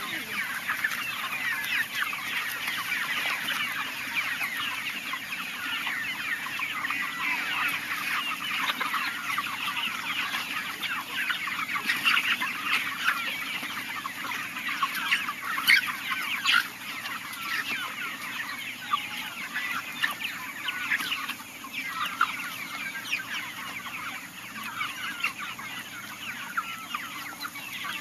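A flock of free-range chickens clucking, many short calls overlapping without a break, with a few sharp clicks in the middle.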